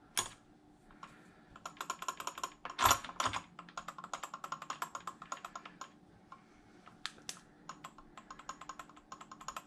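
Rapid runs of small, sharp clicks, several a second, from parts and tools being handled during an RC truck's motor and gear fitting, with a single louder knock just after the start and another about three seconds in.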